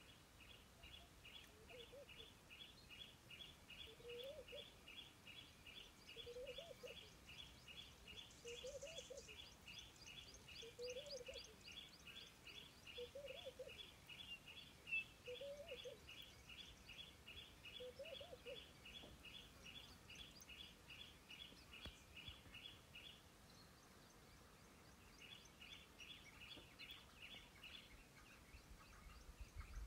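Faint wild animal calls: a high note repeated about three times a second for most of the time, pausing near the end, with a lower rising-and-falling note about every two seconds in the first half. One brief sharp click about halfway through.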